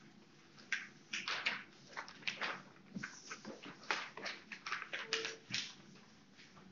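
Sheets of paper being folded and creased into paper airplanes: a quick string of short crinkling, crackling rustles.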